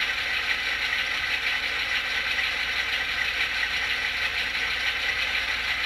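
Soundtraxx Tsunami sound decoder in an HO-scale GP9 model playing its diesel prime mover at a steady idle, heard through the model's small speaker.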